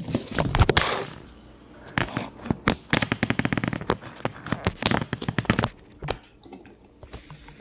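A handheld phone being picked up and handled: a rapid clatter of knocks, taps and scrapes against its body, loudest in the first second and again from about two to six seconds in.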